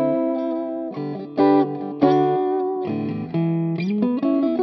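Electric guitar, a Fender Mexican-made Stratocaster with Collins Five 9 hand-wound pickups in the fourth switch position, played clean through a Marshall JVM 410 amp's crunch channel with slight reverb. Picked chords and single notes follow one another every half second to a second and ring into each other, with a short bend near the end.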